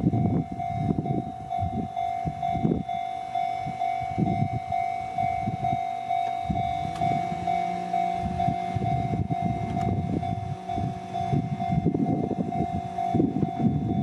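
Japanese railway crossing's warning bell ringing on and on in an even, fast repeating clang, with an irregular low rumble underneath that grows stronger in the second half.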